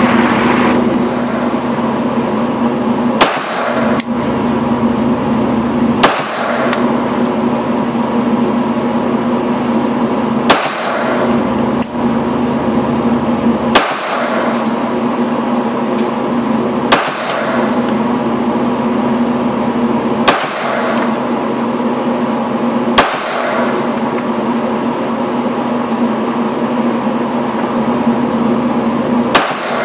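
Springfield Armory XDm .40 S&W pistol fired slowly, about nine single shots a few seconds apart, each a sharp crack with a short echo. A loud steady hum runs under the shots throughout.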